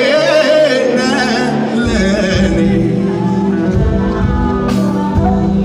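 Live gospel worship music played through a hall's PA: a solo singer's voice, wavering with vibrato, over a band's sustained chords, with a deep bass coming in about two seconds in.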